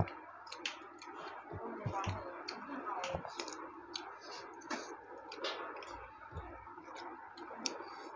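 Close-up mouth sounds of eating rice and chicken curry by hand: scattered wet smacks and chewing clicks over a soft murmur.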